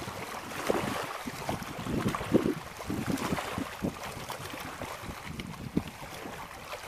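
Small waves lapping and splashing at the water's edge, irregular and uneven, with wind on the microphone.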